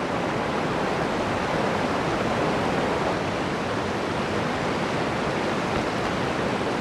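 A swollen, raging river rushing past: a steady, even wash of water noise.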